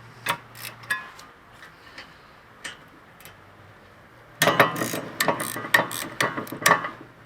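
Socket ratchet clicking as the 14 mm caliper bracket bolts are broken loose. A few separate clicks come near the start, then a quick run of clicks lasts a couple of seconds past the middle.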